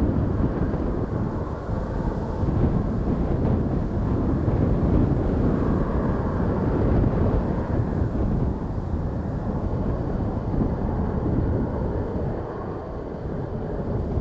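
Jet airliner engine noise mixed with gusting wind on the microphone, swelling and easing over several seconds.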